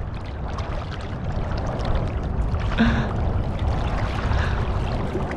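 Shallow saltwater sloshing and lapping right at the microphone, which is held just above the surface by someone wet-wading, with low wind rumble underneath.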